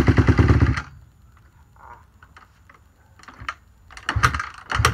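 Honda CRF150R's four-stroke single-cylinder engine, choked on a cold start, fires and runs briefly, then dies under a second in. A few short knocks follow near the end.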